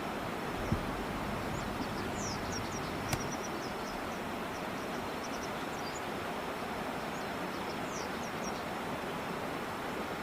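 Steady rush of river water, with faint, high, short bird chirps scattered over it, including quick falling notes about two seconds and eight seconds in. A faint steady high tone runs underneath, and there is a single click about three seconds in.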